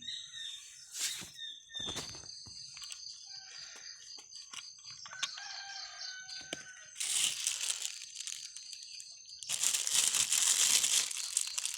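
Rustling, crinkling handling noise, loudest in two stretches in the second half. Before it comes a short pitched animal call in the background.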